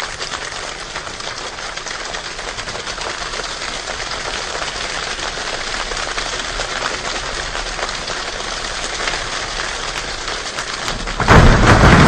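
Steady rain, a dense patter of drops. About eleven seconds in, a sudden much louder, deep rumbling surge cuts in.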